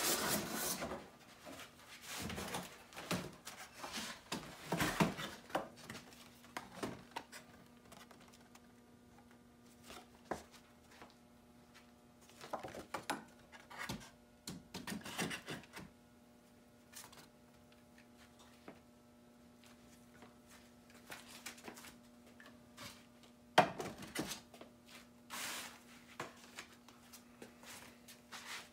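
Cardboard packaging being cut with a box cutter and pulled off: scattered rustles, scrapes and knocks, with one sharp knock about 24 seconds in. A faint steady hum sets in about five seconds in.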